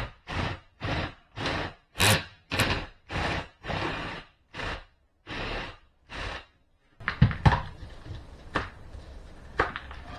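Rhythmic back-and-forth scraping strokes, about two a second, as of a hand tool worked against the wall panel. They stop, and near the end come a few sharp knocks.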